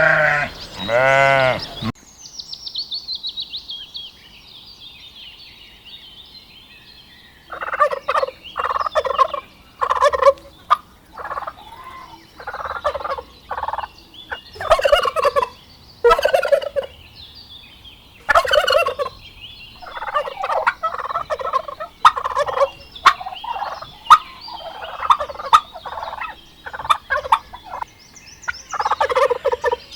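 Turkeys gobbling: a rapid, falling, rattling gobble about two seconds in, then from about seven seconds on a long run of repeated short gobbles and calls. Two bleats from a farm animal open it.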